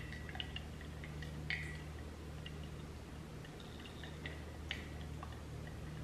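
Metal spoon stirring a thick casting-powder mixture in a drinking glass, clinking lightly against the glass at irregular moments, with the loudest clinks about a second and a half in and near the end. A steady low hum sits underneath.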